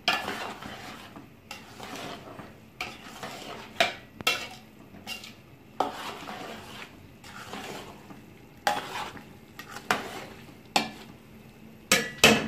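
Metal spoon stirring rice through thick sugar syrup in a stainless-steel pot, scraping the pot and knocking against its sides at an irregular pace, with a few sharp knocks near the end.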